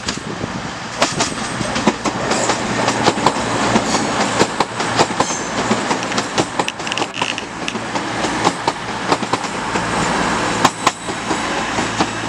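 CrossCountry Class 220 Voyager diesel multiple unit running past, with its underfloor diesel engines giving a steady low drone. Its wheels knock sharply and irregularly over the rail joints and pointwork.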